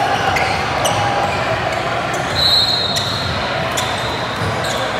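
Basketball game in a gym: a ball bouncing on the court with scattered knocks, under a steady murmur of spectators' voices. About halfway through there is a high steady squeak lasting about a second.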